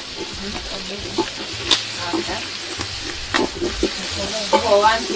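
Food sizzling in a hot pan while being stirred, with a steady hiss and the spoon knocking and scraping against the pan. A brief pitched sound comes near the end.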